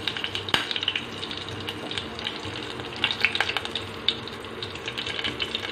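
Hot oil sizzling in a steel pan as curry leaves fry with mustard seeds, urad dal, cumin and fennel in a South Indian tempering. A steady hiss is broken by scattered pops and crackles.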